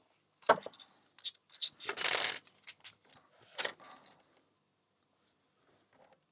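Metal clinks and clatters of a padlock and lock picks being handled: a sharp click about half a second in, a few light ticks, then two louder rattles around two and three and a half seconds in, after which it goes quiet.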